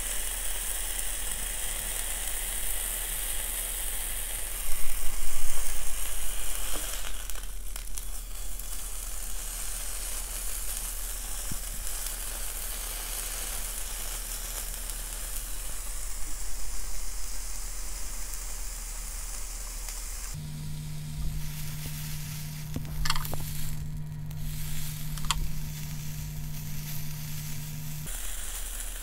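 Slices of beef sizzling on a small ribbed grill pan over a mini brazier, a steady hissing crackle that swells for a moment about five seconds in. A steady low hum joins it for several seconds near the end, with a couple of light clicks.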